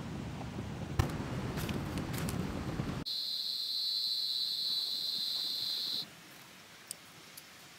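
A pot heating on a portable gas camp stove, with a steady burner and cooking noise and a sharp clink about a second in. The sound then switches suddenly to a steady, high-pitched insect drone that stops abruptly after about three seconds, leaving a quiet evening background with a few faint ticks.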